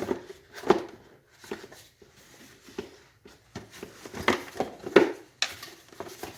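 Plastic housing halves of a Porter Cable C2002 pancake compressor knocking and clicking as they are worked together into place. A scatter of sharp knocks, the loudest about a second in and again near five seconds.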